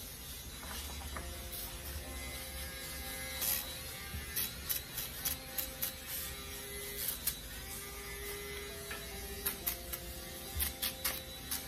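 Cordless mini rotary tool with a horsehair brush wheel polishing agarwood: a steady small-motor whine whose pitch shifts as the wheel is pressed and eased off, with sharp scratchy ticks from a few seconds in as the bristles catch the wood.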